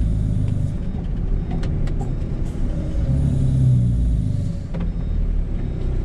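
Low, steady engine and road rumble inside the cab of a work truck driving on a motorway, with a few light rattling clicks.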